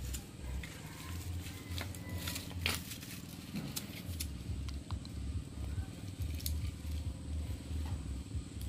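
Dry coconut husk fibres rustling, crackling and tearing as they are handled and packed to kindle a fire in a metal pan, with scattered sharp crackles over a low, uneven rumble.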